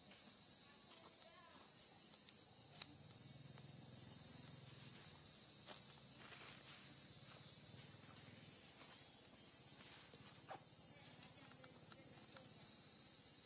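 Steady high-pitched drone of a chorus of insects, with a few faint clicks now and then.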